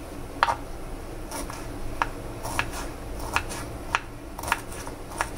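Kitchen knife chopping broccoli florets on a wooden cutting board: about eight separate chops, roughly one every half second to second.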